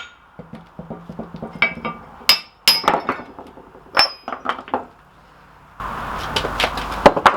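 Heavy iron parts of an old post vise being handled, clinking and knocking against each other: a string of sharp metal strikes, several of them ringing. Near the end a rough rushing noise comes in with a few more knocks.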